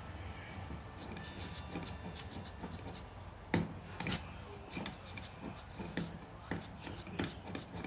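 Faint scattered clicks and rubbing from a hand rivet nut gun being handled and squeezed to set a threaded insert, with two sharper clicks about three and a half and four seconds in.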